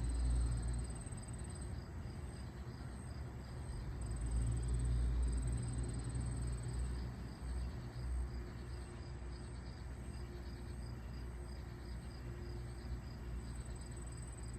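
Crickets chirping steadily in a pulsing high trill, with a low rumble underneath that swells near the start and again around four to six seconds in.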